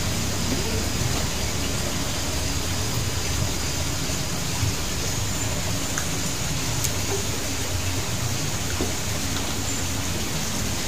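A steady rushing noise, even and unchanging, with a few faint ticks.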